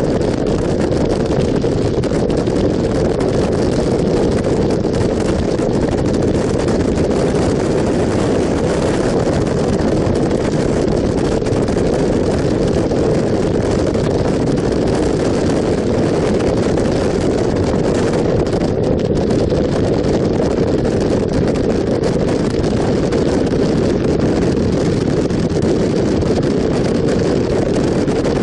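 Motorcycle riding at a steady cruise: engine and road noise blended with wind rushing over the microphone, an even, unbroken noise.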